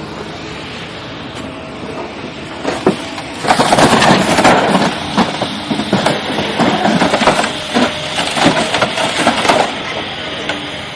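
Steady vehicle running noise. About three and a half seconds in comes a loud stretch of irregular banging and clattering that lasts about six seconds before it settles back.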